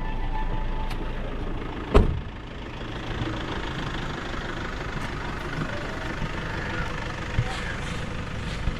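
Boat engine running steadily at a low rumble, with one sharp knock about two seconds in.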